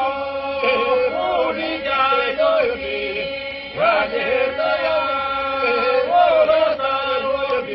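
Slow singing in a chant-like folk style: long held notes, ornamented with pitch bends and runs.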